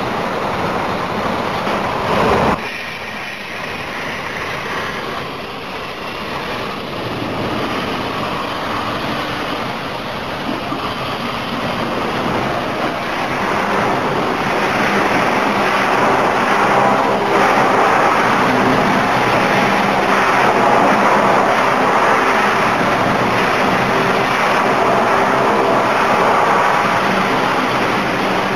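CNC plasma cutting table running, a steady hissing noise that drops suddenly about two and a half seconds in and then slowly grows louder again.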